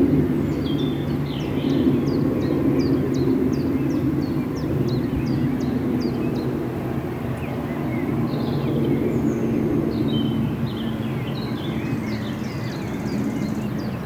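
Wild songbirds calling over the low, steady drone of a distant engine. One bird repeats short, high, falling notes about three times a second for the first few seconds and again near the end.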